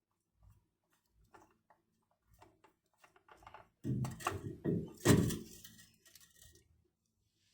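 Hand-work noises during an oil-filter change: light clicks and taps, then about four seconds in a short cluster of knocks, clatter and rustling, which is the oil filter and drain pan being handled.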